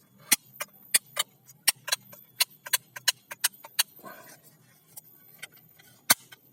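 A quick, irregular run of sharp clicks and clacks, like hard plastic toys being handled and knocking together, with one more loud click near the end.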